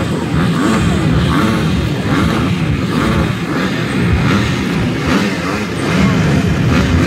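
A row of dirt-bike engines running together, many overlapping engine notes revving up and down at once.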